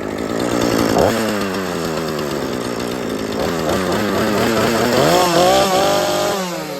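Chainsaw engine being revved: the pitch climbs sharply about a second in, sags, is revved again, rises highest near the end, then drops back toward idle.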